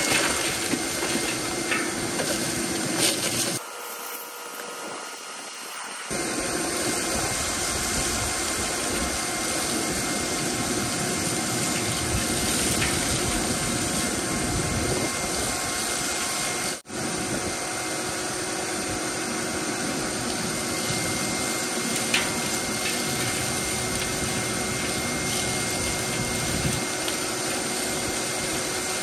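Four shop vacuums running together, a steady rush of air with a faint whine, pulling suction through a 4-inch corrugated hose and a 55-gallon metal drum. The sound drops for about two seconds a few seconds in and cuts out for an instant about halfway through.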